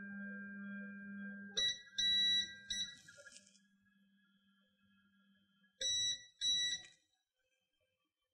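Creality LD-002R resin printer's Z-axis stepper motor humming steadily as the build plate drives down to its home position, stopping about one and a half seconds in. Then come a few short electronic beeps, and two more about six seconds in.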